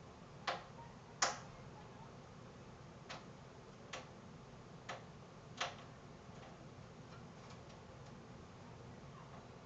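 Sharp, irregular clicks of a screwdriver and screw against a PC case while a power-supply spacer is screwed in: six distinct clicks in the first six seconds, the second loudest, then a few faint ones.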